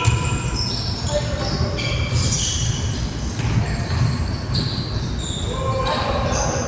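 Basketball game sounds on a hardwood court: the ball being dribbled and players' sneakers squeaking in short high squeals.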